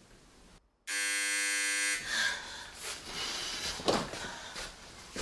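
Electric doorbell buzzer sounding once, a steady buzz of about a second that starts and stops abruptly.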